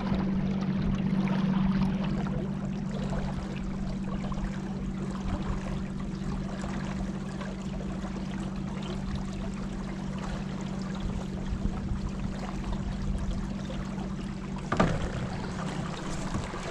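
Water swishing and rushing around a kayak on the move, with a steady low hum underneath. There is a single sharp knock about fifteen seconds in.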